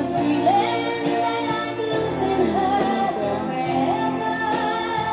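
Music: a song with a woman's voice singing over sustained instrumental backing.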